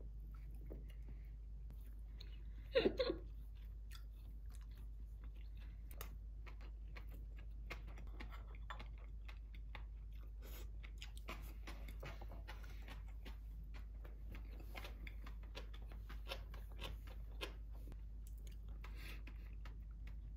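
Close, quiet chewing of a mouthful of inari sushi, a fried tofu pouch of rice topped with flying fish roe and pickled radish, as a scatter of small wet clicks and crunches. One brief louder sound comes about three seconds in.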